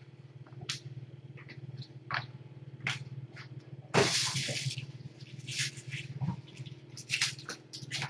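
Kittens moving and playing on a hard floor: scattered light taps and clicks, with one louder scuffling rustle about four seconds in, over a steady low electrical hum.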